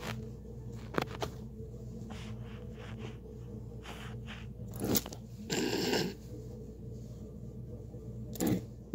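Close rustling and scraping of a hand rubbing over a rabbit's fur and the rug beside the phone, with a couple of sharp clicks about a second in and louder scrapes around five to six seconds in.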